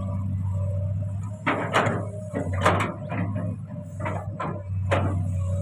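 Komatsu PC200 long-arm excavator's diesel engine running steadily under load, with a string of short knocks and clatters from about a second and a half in.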